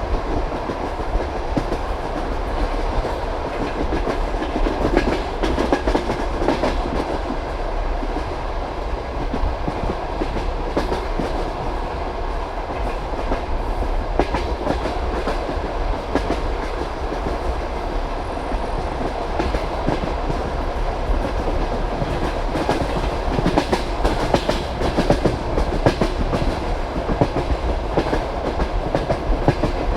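Passenger train carriage running at speed, its wheels clacking over the rail joints over a steady rolling rumble.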